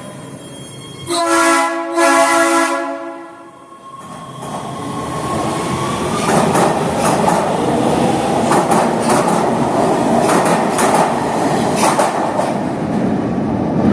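LA Metro rail train sounding two short horn blasts, then pulling in with growing running noise and wheel clacks over the rail joints.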